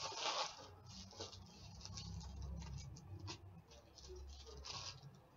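Trading cards and their packaging being handled close to the microphone: irregular soft rustles and light taps, with a low rumble partway through as a hand moves near the mic.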